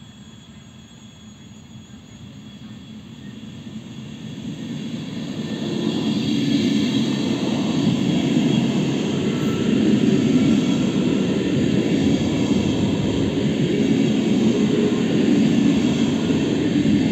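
ESh2 Stadler KISS double-deck electric train approaching and passing close by: the rumble of wheels on the rails builds over the first six seconds, then stays loud and steady as the cars go past.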